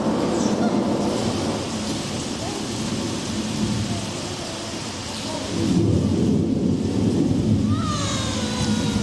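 Thunderstorm sounds: rain hissing under low rolling thunder, the rumble easing off in the middle and swelling again about six seconds in.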